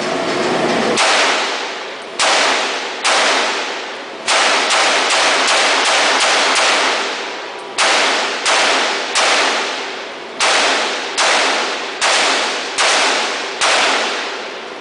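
AR-15 rifle in .223 firing a string of about eighteen semi-automatic shots, some spaced about a second apart and a quick run of several shots a second in the middle, each shot trailing off in a long echo.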